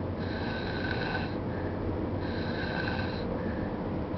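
A young child snoring in her sleep: two long snores of about a second each, each followed by a shorter, fainter one, over the steady low road noise of a car in motion.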